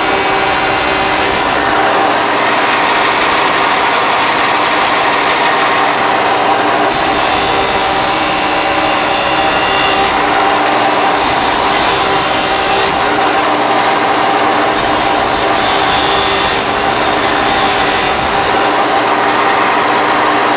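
Angle grinder running continuously against steel, grinding the broken disc-harrow part; the high grinding hiss comes and goes every few seconds as the disc bears on the metal.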